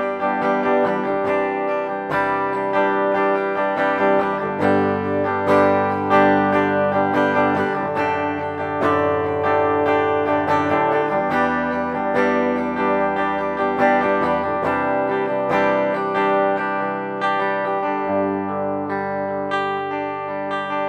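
LTD EC-401FM electric guitar with EMG active pickups, played clean on the bridge pickup: chords and picked notes ringing out, changing every few seconds.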